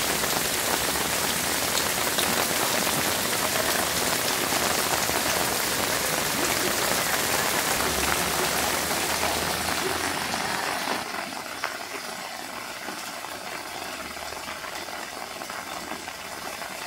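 Heavy rain falling steadily on a flooded street, mixed with muddy runoff water flowing past, heard as a continuous even hiss. About eleven seconds in it turns noticeably quieter.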